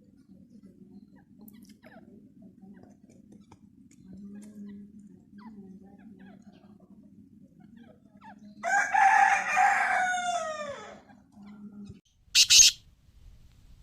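A loud gamebird call about two seconds long, harsh notes that fall in pitch at the end, over a low steady hum. A short sharp click follows about a second later.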